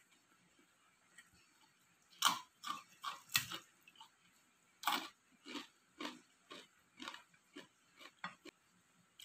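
Close-up eating sounds: a mouth chewing a handful of rice with fried jengkol and salted fish, giving a string of short, wet crunches and smacks about one or two a second, starting about two seconds in.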